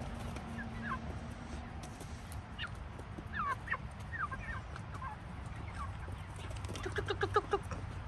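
Chickens calling while being fed: scattered short, falling peeps, then a quick run of clucks about seven seconds in, over a low steady hum.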